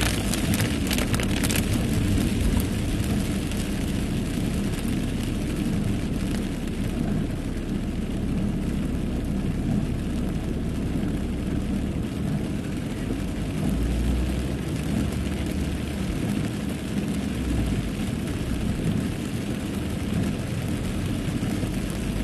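Inside a car driving in a downpour: a steady low rumble of engine and tyres on a flooded road, with the noise of heavy rain on the car. A few sharp crackles sound in the first second or so.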